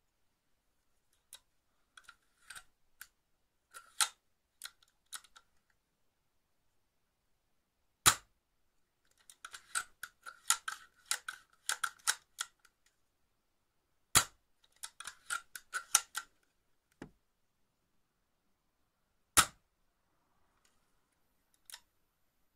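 Tokyo Marui VSR-10 spring-powered bolt-action airsoft rifle mechanism being worked by hand: runs of light mechanical clicking, broken three times by a single loud, sharp snap, at about 8, 14 and 19 seconds.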